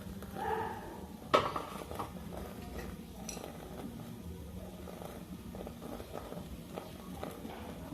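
Metal kitchen utensils clinking against a pan, with one sharp clank about a second and a half in and a few lighter clicks after it, over a steady low hum. A brief pitched call or voice sounds near the start.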